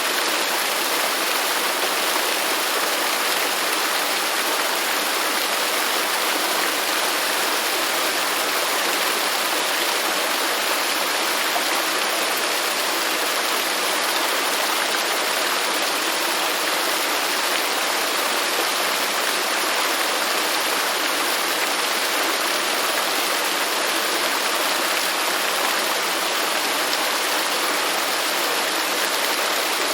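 Waterfall: water rushing and splashing in a steady, unbroken hiss.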